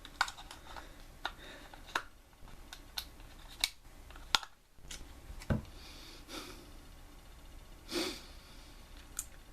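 Hard plastic clicks and knocks, about seven of them over the first five or six seconds, as the parts of a NECA plastic collectible are worked and pushed to make it open. A short sniff or breath comes about eight seconds in.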